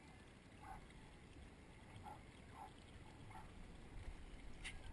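Near silence, with a few faint short blips and a brief click near the end.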